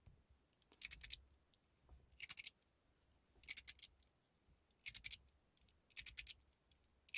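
Gao Rich Fortune Coin, an aluminum magnetic-and-mechanical slider fidget, being slid back and forth: five quick clusters of sharp clicks, about one every second and a half.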